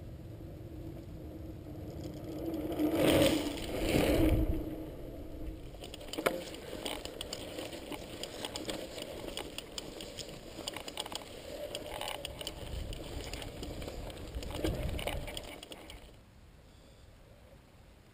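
Mountain bike ridden on a dry dirt-and-gravel trail: tyres crunching and the bike rattling and clicking over bumps, with two louder swells about three and four seconds in. It goes quieter near the end.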